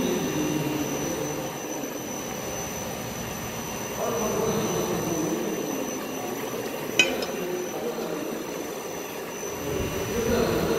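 Steady hum of dairy processing machinery, such as cheese-vat drives and pumps, with a constant high whine. A single sharp metallic clink sounds about seven seconds in.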